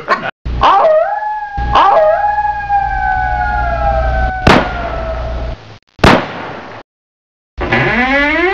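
Added sound effects under the closing titles: a long wail with an octave overtone, slowly falling in pitch over a low rumble and broken by several sharp thumps. After a short silence, a lower, fuller wail starts rising in pitch near the end.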